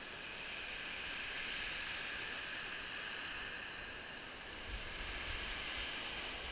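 Surf breaking and washing up a shingle beach, a steady hiss that swells over the first second or two. Wind buffets the microphone near the end.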